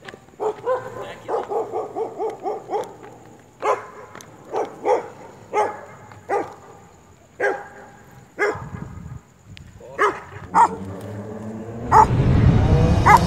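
Stray street dogs barking at a skater: a quick string of short, yappy barks starting about half a second in, then single barks about once a second, with a loud low noise over the last second or so.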